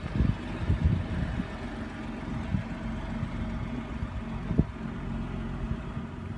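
Steady low hum of a vehicle engine idling, with one soft knock about four and a half seconds in.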